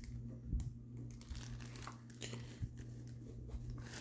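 Faint crinkling of clear plastic wrapping as a foam microphone isolation ball is handled on it, in scattered soft rustles over a steady low hum.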